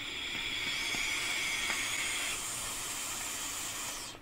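Vape coil on a dripping atomizer sizzling as it is fired during a long draw: a steady hiss with a high, airy whistle through the first half, cutting off just before the end.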